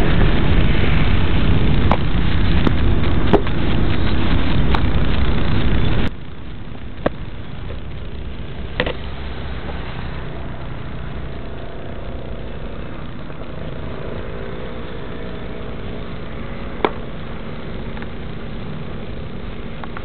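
Small FPV quadcopter's motors and propellers spinning at idle while it sits on the ground, cutting off abruptly about six seconds in. A quieter steady hiss follows, with a few sharp clicks.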